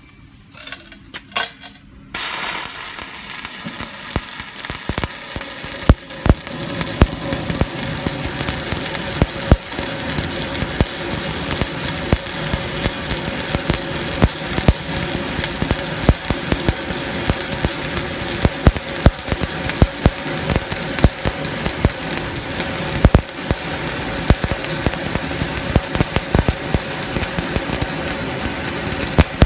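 Stick-welding arc struck about two seconds in, then a steady crackling sizzle with frequent sharp pops: a 3.2 mm electrode burning at 130 amps as the hot pass is laid.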